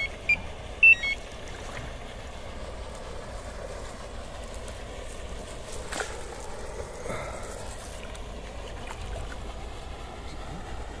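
Electronic bite alarm on a carp rod giving a few short high beeps in the first second or so, the sign of line moving through it. After that only a low steady hiss, with a faint click about six seconds in.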